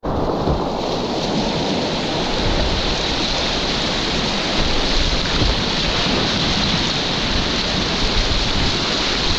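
Whitewater rapid rushing: a steady, unbroken noise of churning river water, heard from a kayak running the rapid.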